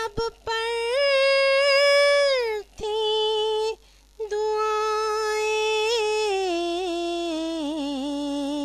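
A woman singing a devotional Urdu naat with no accompaniment, in long held notes. A short phrase rises, holds and then slides down. A brief steady note follows, then a long line that steps slowly downward with a quavering ornament near the end.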